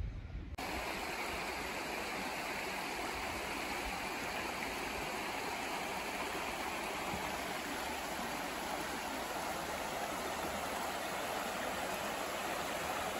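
Shallow stream running over stones beside a concrete wall, a steady rush of water that starts abruptly about half a second in.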